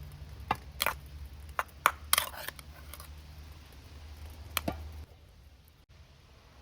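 A handful of sharp clinks and knocks of kitchen utensils against cookware, over a low steady hum that stops about five seconds in.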